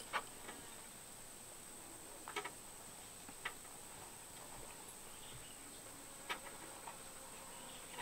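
Quiet outdoor background of insects giving a steady high-pitched drone, with a few faint, scattered clicks and knocks as the stopped circular saw's guide area is worked on by hand.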